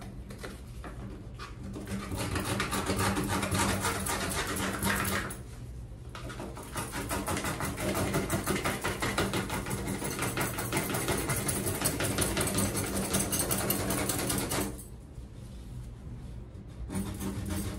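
Rapid back-and-forth hand scrubbing on the bathtub's enamel edge and tile grout, scrubbing off mildew. It goes in fast, continuous strokes, easing off briefly about five seconds in and again near the end.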